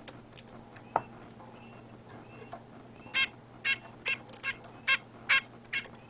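Red-breasted nuthatch giving a quick series of seven short calls, about two a second, starting about halfway through. A single sharp click comes about a second in.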